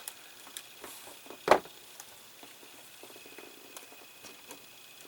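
Small clicks and taps from handling plastic model parts and tools at a workbench, with one sharp, louder click about one and a half seconds in.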